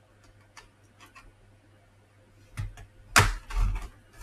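Light plastic clicks and taps as the plastic casing of an Acer 4739 laptop is worked at. Near the end comes a louder scraping and cracking as the case is pried open.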